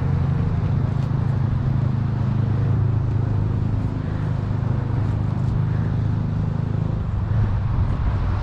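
A steady low hum with a noisy rumble, like an engine running at an even speed.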